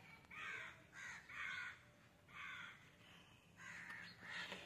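Faint crow cawing: a string of about six harsh caws, some in pairs.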